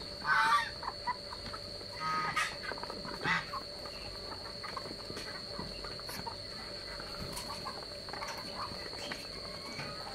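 A mixed flock of chickens, Muscovy ducks and geese feeding on rice. Three loud calls come in the first few seconds, over light ticks of beaks pecking.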